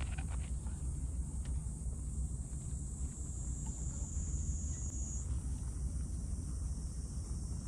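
Outdoor background noise: a steady low rumble with a steady high-pitched whine above it that drops slightly in pitch about five seconds in, and a few light clicks at the very start.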